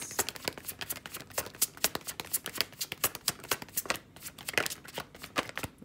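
A tarot deck being shuffled by hand: a dense, irregular run of quick card clicks and slaps, easing off briefly about four seconds in.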